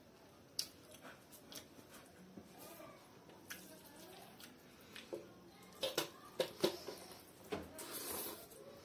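Someone eating fried rice by hand from a stainless steel bowl: soft wet squishing of rice under the fingers and chewing, with scattered sharp clicks and smacks, a cluster of them about six seconds in.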